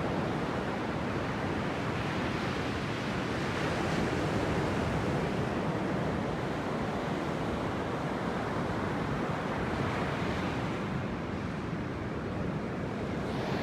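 Sea surf breaking and washing on a beach: a steady rush that swells and eases slowly.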